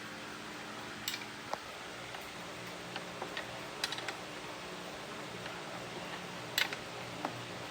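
Steady background hiss with a few short, sharp clicks and light taps, the loudest a little before the end.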